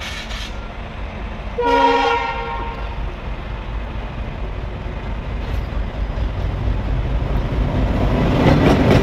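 Indian Railways WDM-class diesel locomotive rumbling as it rolls toward and past, growing louder toward the end. A train horn sounds once, for about a second, about two seconds in.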